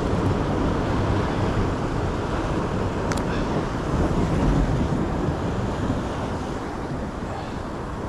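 Steady wind rumbling on the microphone over the wash of sea surf against rocks, with one brief click about three seconds in.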